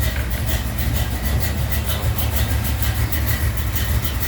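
Engine idling on a newly fitted serpentine belt setup: a steady low drone with a fast, regular ticking and a faint steady high whine.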